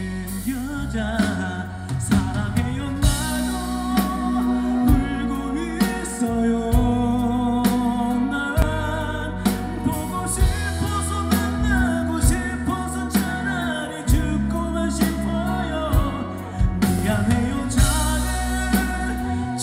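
A live band plays a Korean pop ballad with a singing voice over it, a steady drum beat and sustained bass notes.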